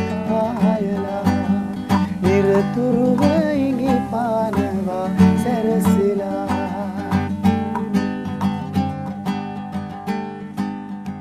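Music: the closing bars of a song, with acoustic guitar strumming under a wavering melody, gradually fading out near the end.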